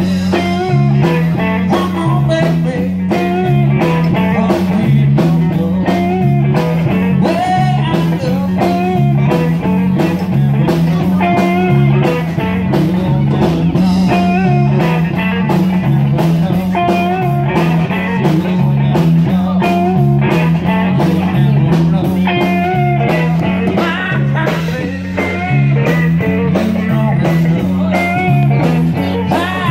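Live band playing blues-rock: electric guitar over a repeating low bass line and steady drum beats.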